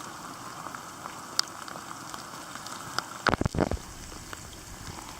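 Steady rain with scattered drop ticks. About three seconds in come a few loud knocks with a low rumble, like the camera being handled.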